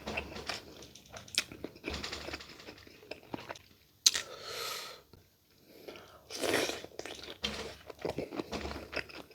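Close-miked eating: wet chewing with crunching bites and scattered small clicks. A sharp click about four seconds in is followed by a short hiss, and another short hiss comes about six and a half seconds in.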